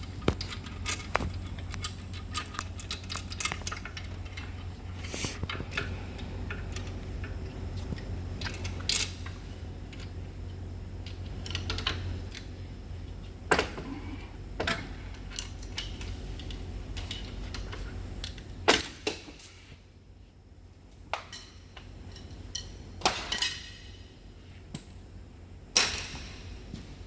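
Irregular metallic clinks, clicks and a few louder clanks of tools and brake parts being handled on a truck brake job, over a steady low hum.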